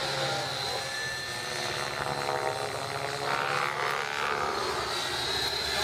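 Radio-controlled model helicopter flying aerobatics: a steady high whine from its motor and rotors, swelling and gliding in pitch about halfway through as it manoeuvres.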